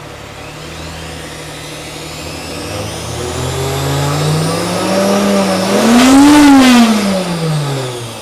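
2006 Nissan Frontier's 4.0-litre V6 revved slowly up to a peak about six seconds in and then dropping back, with a high whine climbing and falling along with the engine speed: the owner blames a failed torque converter.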